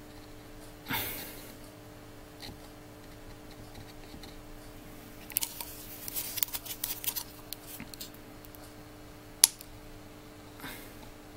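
Small clicks and taps from handling a plastic sealant syringe at a workbench: a short hiss about a second in, a quick run of clicks midway and one sharp click near the end, over a steady electrical hum.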